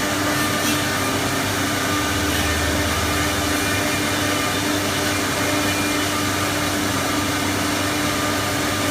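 4-axis wood CNC router running steadily: a constant machine hiss with a faint steady hum in it.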